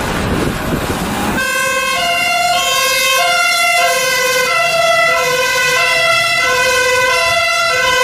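German fire engine's two-tone siren sounding from a Scania turntable-ladder truck on a call, alternating steadily between a higher and a lower note. It starts about a second and a half in, after a rush of noise.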